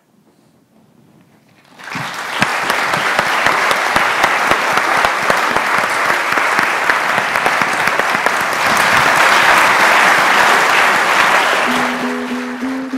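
Audience applause breaking out about two seconds in after a brief hush, a dense clapping that tails off near the end as a plucked string instrument begins playing notes.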